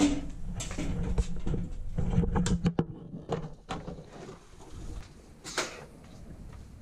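Scattered knocks and clicks of someone climbing a stepladder and handling things at an open stud wall, with a low hum under the first three seconds and a brief rustle about five and a half seconds in.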